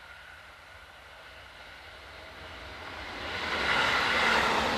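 JR Hokkaido 711 series AC electric multiple unit approaching and passing close by. Its running noise grows steadily louder and is loudest in the last second or so as the cars go past, with a high steady whine running through it.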